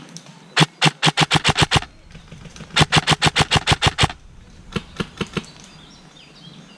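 Airsoft electric rifle firing two rapid strings of shots, about ten a second, followed by a few single shots about five seconds in.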